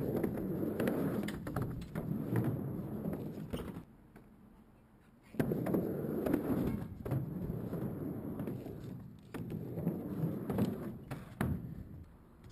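Skateboard wheels rolling back and forth across a mini halfpipe, a rumble that swells and fades with each pass, with sharp clacks from the board and trucks. The rolling stops briefly about four seconds in, then resumes for two more runs.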